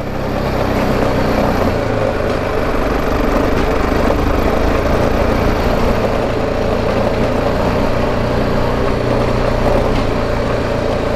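BMW G310 GS motorcycle's single-cylinder engine running steadily under load as it climbs a steep slope.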